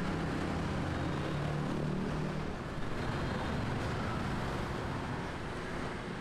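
Steady street traffic: a low rumble of passing vehicles, with one engine's hum strongest in the first two seconds or so.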